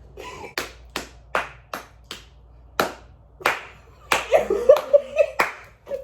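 Hand claps: sharp single claps about every half second, then a quicker cluster of claps mixed with a brief vocal sound from about four seconds in.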